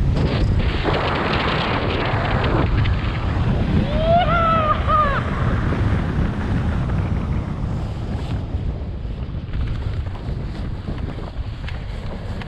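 Airflow buffeting the microphone of a speedflyer's camera in fast flight, a heavy steady rush that eases off in the second half as the wing slows near the ground. About four seconds in comes a short pitched cry that rises and falls, like a whoop.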